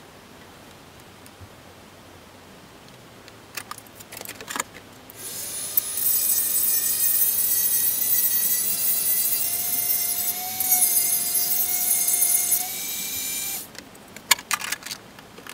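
Rotary tool on a flexible shaft running at high speed, a steady high whine, as it grinds excess plastic off a helmet ear cap. It runs for about eight seconds, drops in level shortly before stopping, and short handling clicks and knocks come before and after it.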